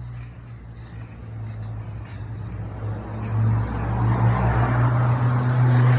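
A motor vehicle engine running, a steady low hum that grows steadily louder, loudest in the last couple of seconds.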